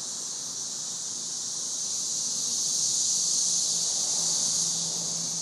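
Chorus of massed 13-year periodical cicadas, a steady high-pitched hiss-like drone that swells to its loudest about halfway through.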